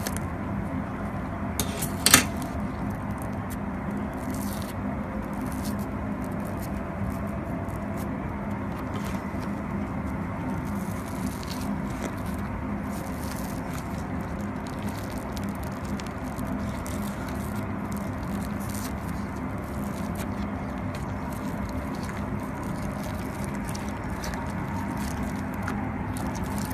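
Scissors cutting into a rubber squishy ball, then fingers pulling and crumbling its fluffy white filling, with scattered crackling and scraping over a steady low hum. A sharp click about two seconds in is the loudest moment.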